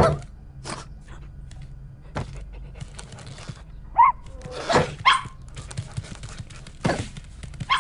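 A dog with its food bowl: several sharp knocks and clatters of the bowl, with two short barks around the middle.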